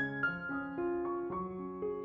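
Background piano music playing a melody of single notes.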